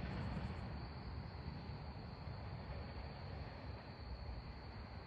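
A steady, high insect trill over a low rumble.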